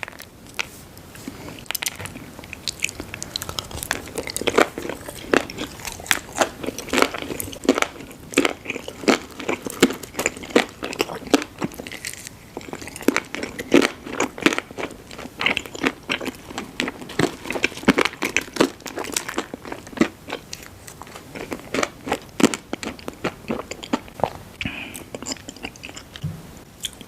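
Close-miked chewing of sweets, with many sharp crunches and crackles as they are bitten and chewed.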